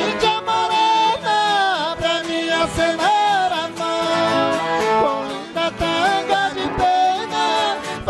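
Two men singing a sertanejo song together, accompanied by strummed acoustic guitars.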